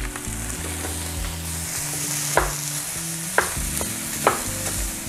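Ground beef sizzling as it hits a hot frying pan of onions, mushrooms and garlic in olive oil, while a wooden spatula stirs and breaks it up. The spatula knocks against the pan three times, about a second apart, in the second half.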